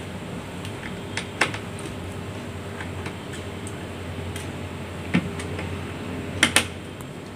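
A screwdriver ticking and clicking against the screws and metal screen brackets while backing out the screws that hold an HP laptop's LCD panel in its lid. The clicks are few and scattered, with a close pair near the end, over a steady low hum.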